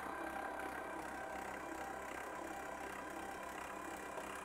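A steady, quiet mechanical hum with several fixed tones, unchanging throughout.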